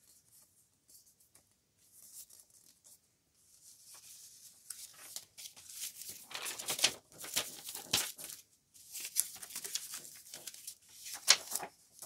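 Paper rustling and crinkling as folded white paper pockets and journal pages are handled, starting about four seconds in as irregular crisp bursts with a few sharper crackles.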